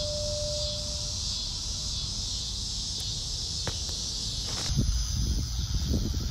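Steady high-pitched chorus of insects over a low rumble. A lingering musical tone dies away about a second in, and near the end a couple of sharp clicks and some irregular low thumps come in.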